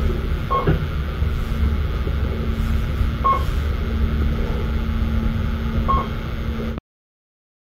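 Lift car travelling with a steady low hum, with three short beeps about two and a half seconds apart. The sound cuts to silence near the end.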